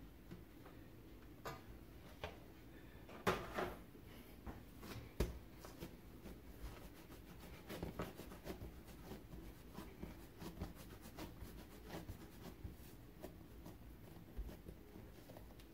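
Hands flattening and rolling a piece of whole wheat bread dough on a silicone baking mat: faint soft pats and rubbing. A few sharper knocks stand out in the first few seconds.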